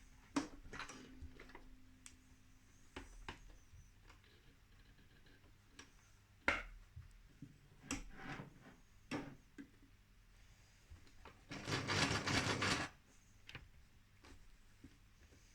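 Sewing machine running a zigzag stitch for about a second near the end, with scattered light clicks and knocks from the fabric being handled and turned between stitching runs, one sharper click about halfway through.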